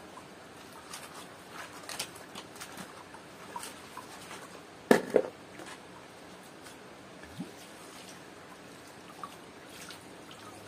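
Small handling sounds of fresh herbs and vegetables being cleaned: light rustles and clicks, with a louder double knock about five seconds in.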